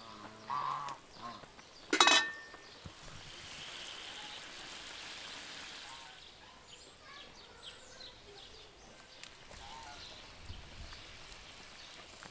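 Geese honking a few short times, the loudest call about two seconds in, followed by a soft steady hiss and a few small clicks.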